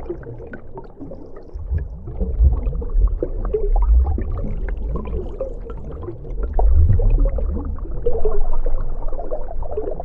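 Deep-sea underwater water-flow ambience: a deep rumble swelling and easing every few seconds, under continual bubbling and gurgling.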